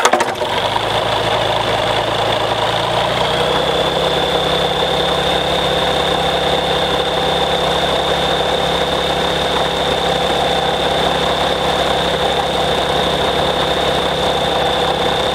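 Rotax 912 flat-four aircraft engine catching on a choked cold start and settling into a steady idle, its speed rising slightly about three seconds in and then holding even. It is being run to confirm oil pressure after its oil system has been purged.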